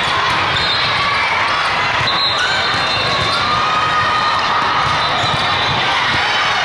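Dense din of a large hall full of volleyball courts: many voices calling and shouting, with balls being struck and bouncing on the floor.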